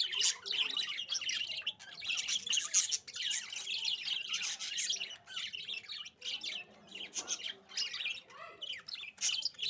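Budgerigars chirping and chattering continuously, a dense run of quick high chirps and short squawky notes.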